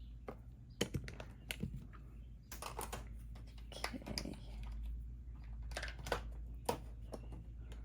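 Irregular light taps and clicks of a craft ink dauber and card stock being handled on a tabletop, about a dozen in all, over a low steady hum.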